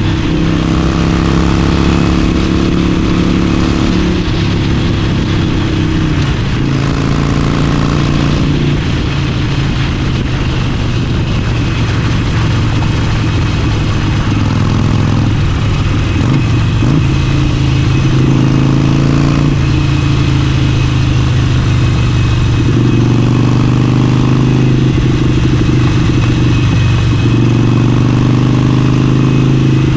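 Harley-Davidson Forty-Eight's air-cooled 1200 cc V-twin, fitted with an aftermarket Vance & Hines exhaust, running under way on the road. The engine note rises and falls several times with throttle and gear changes, settling to a lower steady pitch in the second half.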